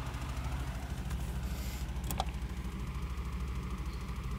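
Steady low motor hum with a fine, even pulse, and one faint click a little over two seconds in.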